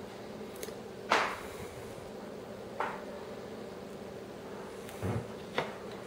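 Paper backing being peeled off a small adhesive rubber grip panel: a short crackle about a second in and a softer one near three seconds, then a dull knock and a click near the end as the pistol frame is handled. A steady low hum sits underneath.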